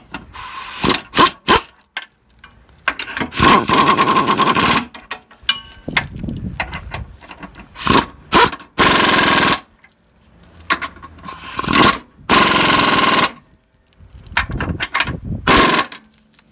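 Impact wrench running in repeated bursts, some short blips and some of a second or two, as it drives in and tightens the new 22 mm suspension bolts.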